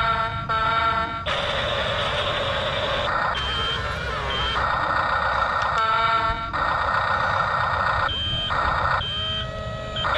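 Toy-grade RC bulldozer running: a rough engine-like noise confined to a narrow middle band, broken several times by short high beeps and by stretches of a steady whining tone.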